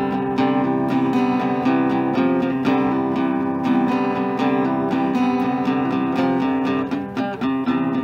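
Acoustic guitar playing an instrumental jam, with steady strummed and picked chords.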